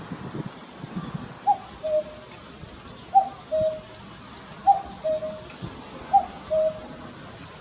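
Common cuckoo (Cuculus canorus) giving its two-note "cuck-oo" call four times, a higher note then a lower one, repeating about every one and a half seconds.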